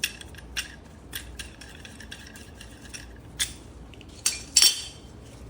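Metal clinking and clattering as a steel C-clamp and brake caliper parts are handled: a few scattered sharp clinks, the loudest with a short ring about four and a half seconds in.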